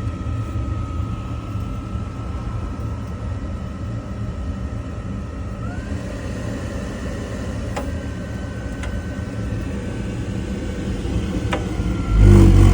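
Rinnai tankless water heater running at high fire with two faucets open: a steady rumble with a thin whine that steps up in pitch about halfway through, as the flame blows out and the unit heads for a Code 12 lockout, which the technician takes for a venting issue. A loud low bump near the end.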